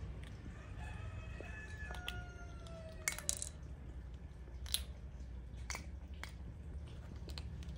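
A few sharp clicks of hard plastic toy pieces as a baby macaque handles and mouths a plastic puzzle ball, over a steady low hum. A faint falling tone sounds about two to three seconds in.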